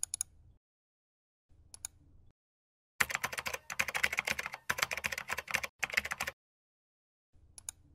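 Typing on a computer keyboard. There are a few short clicks at the start and at about 2 seconds, then a quick run of keystrokes from about 3 to 6 seconds, and a brief click again near the end.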